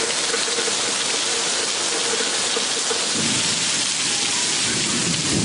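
Heavy tropical wet-season downpour, a dense steady hiss of rain pouring onto surfaces. A low rumble joins about three seconds in.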